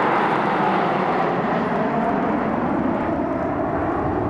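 Jet engines of a large formation of military fighter jets flying past, a steady roar with a whine that falls slowly in pitch as the formation moves away.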